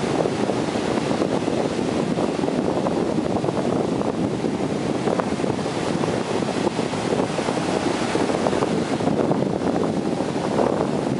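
Wind buffeting the microphone over the steady rush of breaking ocean surf.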